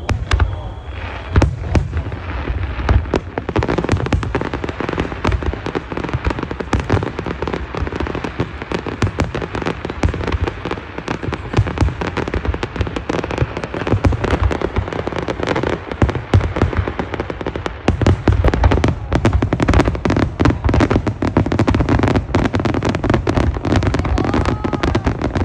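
Aerial fireworks bursting in rapid, overlapping succession: deep booms from the shells and a dense crackle of many small reports, growing thicker near the end.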